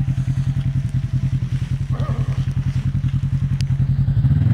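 Side-by-side UTV engine running steadily with an even, regular pulse as the machine circles in mud, then revving up in level and pitch near the end.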